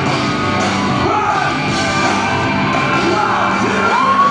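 Live rock band performance with electric guitars, drums and male lead vocals, with shouting over the music. Near the end a voice slides up into a high held note.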